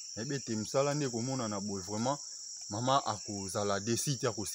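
A man talking over a steady, high-pitched chirring of insects.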